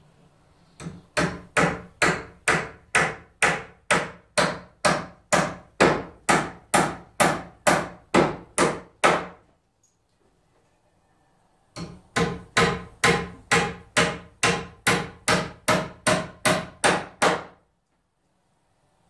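Hammer pounding on the wood framing overhead: two runs of steady, evenly spaced blows, about three a second, with a pause of about two seconds between them.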